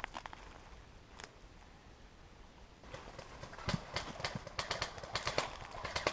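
Footsteps on dry, gravelly ground: a few scuffs at first, then from about three seconds in a quicker run of irregular crunching steps, several a second.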